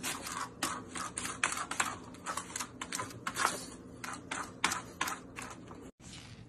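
A pug rummaging head-first in a cupboard: an irregular run of quick scratches, knocks and rustles, two to four a second, which stops abruptly about six seconds in.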